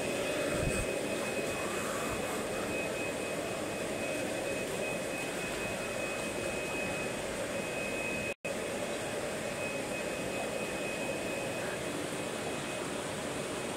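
Steady hum and hiss of a fish room's aquarium aeration and filtration equipment, with a faint thin steady whine above it. The sound cuts out for a split second about eight seconds in.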